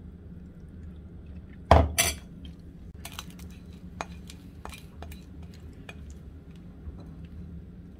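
A metal fork clatters against a plate about two seconds in, two loud knocks close together, followed by light clinks and scraping as bread is rubbed around the plate to mop up the sauce.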